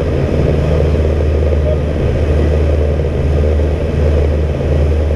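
Steady drone of an ATR 42-320's Pratt & Whitney PW121 turboprop engines and propellers, heard from inside the cockpit as a deep, even hum.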